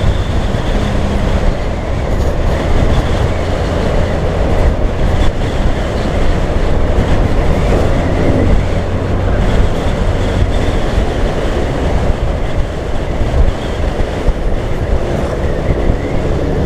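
Two-stroke motorcycle ridden at speed: a loud, steady rumble of wind on the microphone over the engine running.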